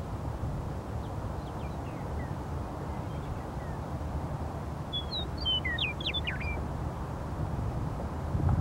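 Western meadowlark singing one short phrase of quick, gliding notes about five seconds in, with a few faint notes earlier, over a steady low rumble.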